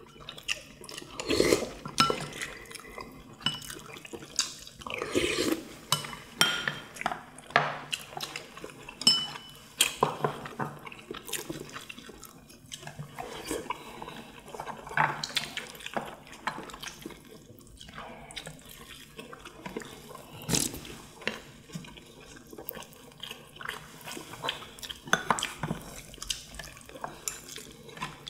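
People eating at a table: wet chewing and smacking, with chopsticks and spoons clicking against ceramic bowls and plates in irregular sharp ticks.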